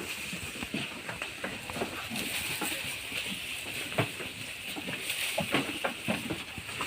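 Sheep-pen ambience: scattered short knocks and shuffles over a steady high hiss.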